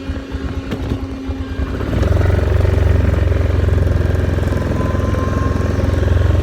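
Yamaha Grizzly 450 ATV's single-cylinder four-stroke engine idling with a low pulse, then picking up under throttle about two seconds in and running louder and steady as the quad sets off.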